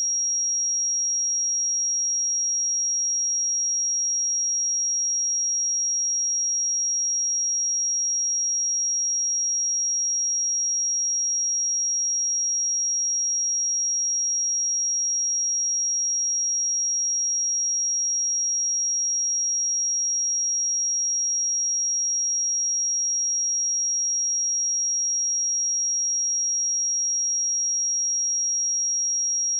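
A single pure sine-wave test tone at 5641 Hz, a steady high-pitched whistle-like pitch held unchanged at constant loudness, used for checking speakers and headphones.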